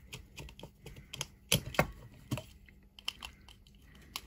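Irregular sharp clicks and taps of a small screwdriver and wires against a plastic wall switch as it is wired up, the loudest pair a little under two seconds in.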